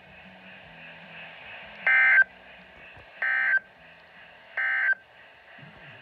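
NOAA Weather Radio end-of-message signal through a Midland weather alert radio's speaker: three short bursts of SAME digital data tones, about a second apart, marking the end of the alert broadcast.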